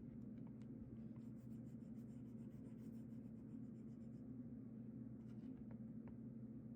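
Faint scratching of writing on paper, in short strokes for a few seconds after about a second in, with a few light ticks, over a steady low room hum.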